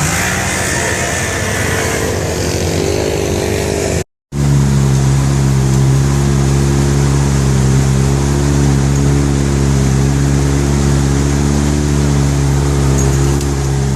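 Vehicle engine running, its pitch rising and falling over the first few seconds; the sound cuts out briefly about four seconds in, then the engine runs steadily at an even pitch.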